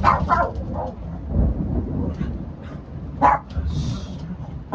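Thunder rumbling low and continuously while a dog gives a few short barks.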